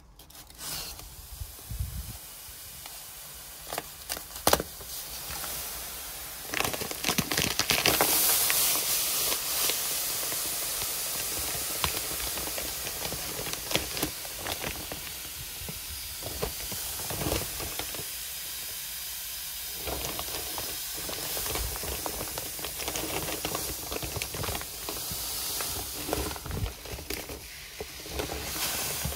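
Filter sand pouring from a 20 kg bag into a pool sand filter tank, a steady hiss that starts several seconds in and runs on. Before it come a few clicks and rustles as the bag is cut open with a utility knife.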